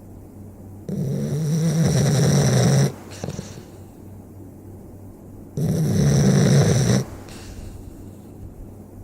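A sleeping pet snoring: two long snores about four and a half seconds apart, each followed by a brief softer breath.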